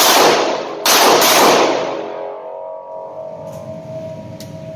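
A 2-inch RIA AL3.1 .357 Magnum snub-nosed revolver fires its last shot about a second in, a full-power .357 Magnum round after a string of .38 Specials, and the report echoes off the concrete walls and dies away over about a second and a half. Near the end come a few faint clicks as the revolver is handled.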